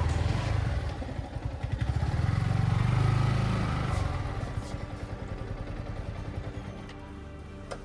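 Yamaha MT-15's single-cylinder engine running at low speed, loudest about three seconds in, then dying away.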